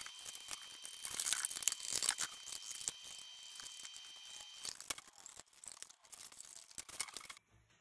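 Scissors cutting through corrugated cardboard: a quick, uneven run of snips and scraping cuts that stops suddenly near the end.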